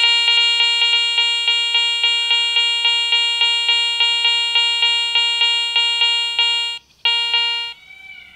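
Garrett ACE 400i metal detector with a Karma search coil sounding its target tone as a dog tag is passed over the coil. It is a mid-pitched tone pulsing rapidly, about four to five times a second, and it breaks off briefly near the end. The tone is the detector picking up the dog tag in an air test, which it detects out to 46–47 cm.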